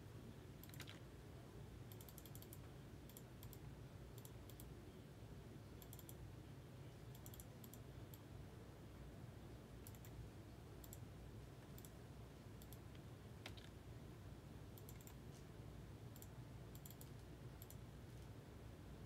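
Near silence over a low steady hum, with faint irregular clicks of a computer mouse.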